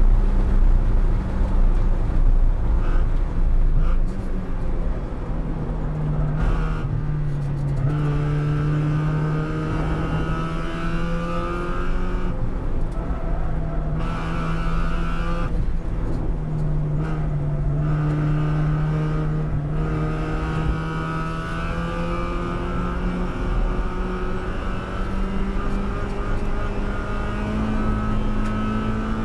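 Spec Miata's 1.8-litre four-cylinder engine, heard from inside the cabin. It is working hard at speed, drops in level about four seconds in as the car slows from about 96 to 57 mph for a corner, then climbs in pitch again several times, with short breaks between the climbs.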